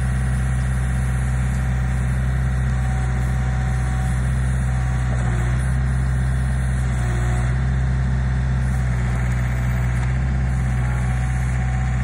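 John Deere compact backhoe loader's diesel engine running steadily while the backhoe arm is worked to drag a heavy log.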